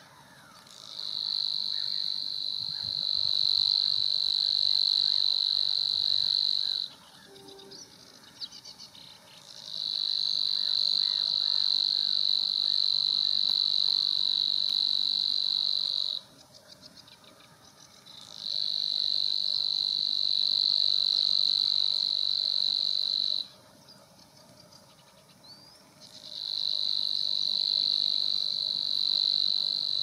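Savi's warbler singing: long, even, insect-like buzzing reels at a single high pitch. There are four reels of about five to six seconds each, with short pauses between them.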